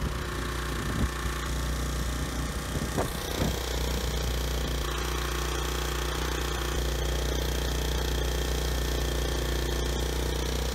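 Briggs & Stratton G1000M portable generator's Vanguard engine running at a steady governed speed: an even, constant hum, with a couple of light clicks about three seconds in.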